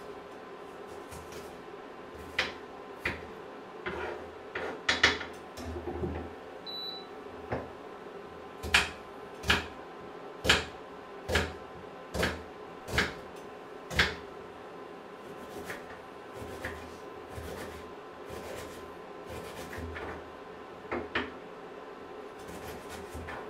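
Sharp clicks and pops from a carbon-steel frying pan with merguez sausages heating on the hob. They come scattered at first, then as an even run of about seven, roughly one a second, in the middle, then fainter. A steady low hum runs underneath.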